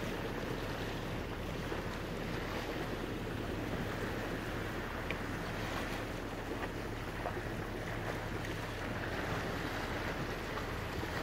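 Boat under way on open water: a steady rush of water and wind, with a low steady engine hum underneath.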